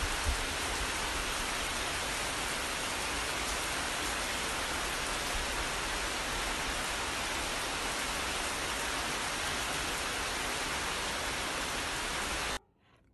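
Steady rain falling on a tiled terrace, an even hiss with nothing over it, cutting off suddenly near the end.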